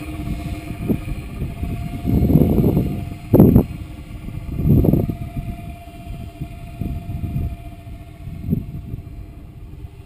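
Electric motor and propeller of a small RC airplane running at full throttle as it flies off, a thin steady whine. Low rushes of wind noise on the hat-mounted camera's microphone swell up about two, three and a half and five seconds in.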